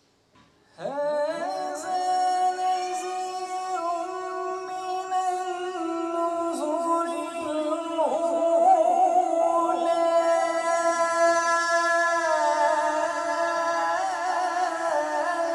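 Unaccompanied melodic Quran recitation (tilawat) by a male reciter into a microphone. It starts about a second in as one long, drawn-out ornamented phrase whose held pitch steps up and down several times.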